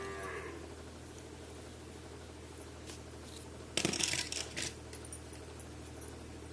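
Small plastic toy pieces clicking and clattering together in a short burst about four seconds in, over a steady low hum.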